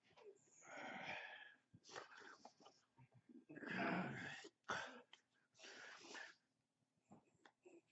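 A man's breathy puffs and throat noises without words, a string of short bursts, the loudest about four seconds in.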